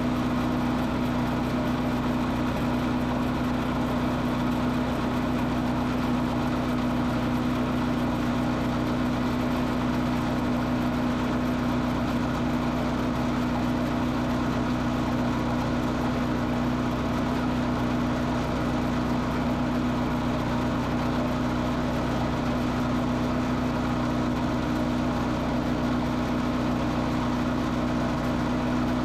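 Heavy equipment engine running steadily at constant speed, an even drone with no change in pitch.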